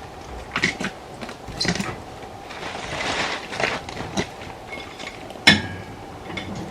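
Scattered light clinks and knocks of hard objects being handled. About five and a half seconds in comes one sharp, loud metallic clank that rings briefly.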